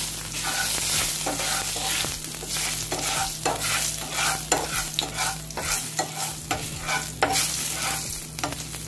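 Spatula stirring and scraping a nonstick frying pan, about two strokes a second, over ghee sizzling with spices and dried red chillies: the tempering (tadka) for dal being fried.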